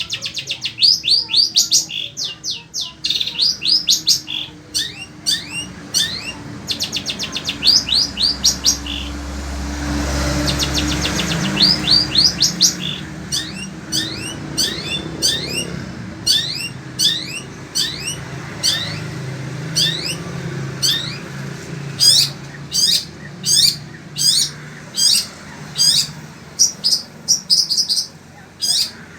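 Long-tailed shrike (cendet) singing loudly and without pause: fast runs of short, sharp rising chirps, repeated many times a second in bursts, in a varied song full of mimicked phrases.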